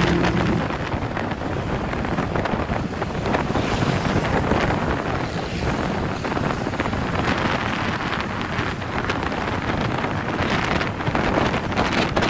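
Wind buffeting the microphone in a loud, uneven rush while travelling along the road, with no clear engine tone showing through.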